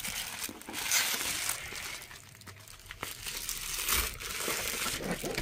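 Plastic padded mailer envelopes crinkling and rustling as they are picked up and handled, loudest about a second in and again about four seconds in.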